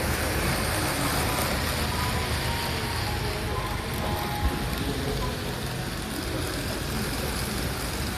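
Model trains running on a layout's track, among them a Sunrise Express model at high speed: a steady running noise, with one short knock about four and a half seconds in.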